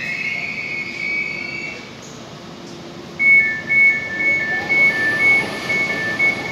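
Repeating two-note electronic beeping, about two beeps a second, starting about three seconds in, typical of a door warning on an Elizabeth line Class 345 train at the platform. Under it, the rumble of an approaching train grows. Before the beeping, a steady high whistling tone fades out.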